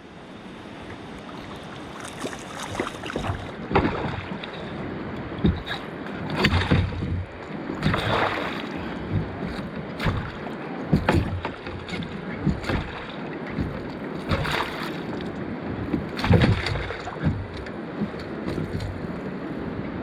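Water splashing and sloshing in uneven splashes every second or so over a steady wash of water noise, as an angler standing in the water fights a hooked fish.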